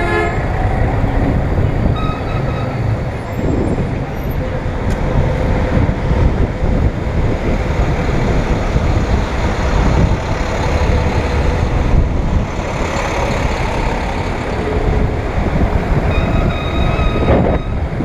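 City street traffic, bus and car engines close by, heard through steady wind rumble on a bicycle-mounted action camera's microphone while riding. A few faint short tones near the start and near the end.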